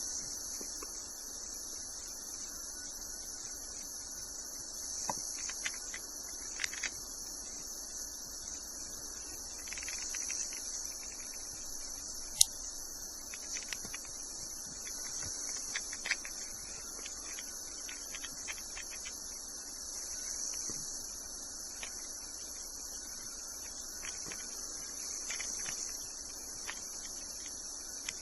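A steady high-pitched background drone, with scattered light clicks and taps and one sharp click about twelve seconds in.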